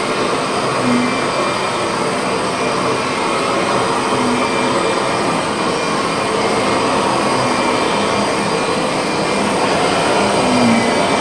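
Kirby Sentria upright vacuum cleaner running steadily while it is pushed back and forth over carpet.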